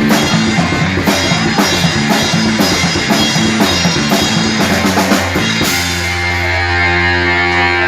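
Rock band playing an instrumental passage with drum kit and guitar; a little over five seconds in the drums stop and a held chord rings out.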